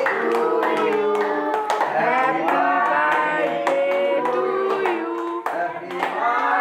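Music with singing, most likely a birthday song, with hands clapping along in time.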